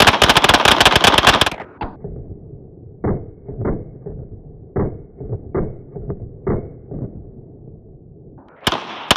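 A rapid burst of gunfire, more than a dozen shots in about a second and a half. It is followed by a string of about ten softer, duller knocks over the next few seconds, then one more sharp shot near the end.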